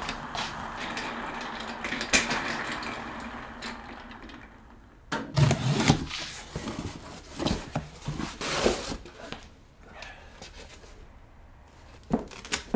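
Rustling for about the first four seconds, then a run of knocks and clatters around the middle as objects are handled.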